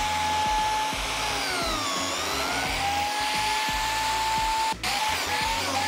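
Handheld biscuit joiner running with its dust extractor, a steady high whine over a rushing hiss. Its pitch sags and recovers about two seconds in as the blade cuts a slot into the solid spruce panel. The sound breaks off for an instant about five seconds in.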